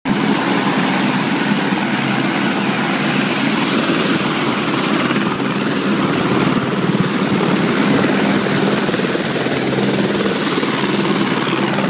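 Tour helicopter running close by with its rotor turning: a loud, steady rotor and engine drone with a thin high whine over it.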